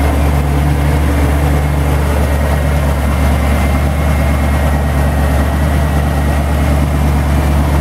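Ford 460 big-block V8 idling steadily, a deep, even rumble with no revving.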